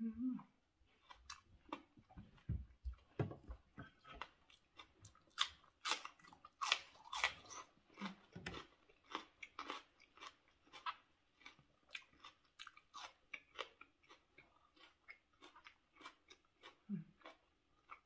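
A person chewing a mouthful of spicy raw seafood salad close to the microphone: a run of quick wet mouth clicks and smacks, several a second, loudest a few seconds in.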